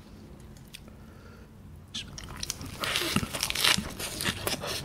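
A crisp lettuce leaf wrapped around glass noodles being bitten and chewed close to the microphone: a run of wet crunches starting about two seconds in.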